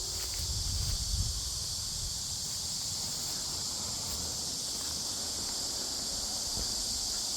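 Steady high-pitched chorus of insects, even and unbroken, with wind rumbling on the microphone, strongest about a second in.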